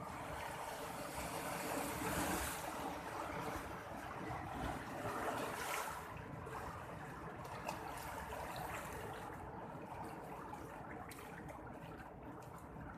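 Sea waves washing onto a shore as a continuous rushing hiss, with louder surges about two seconds in and again about five seconds in.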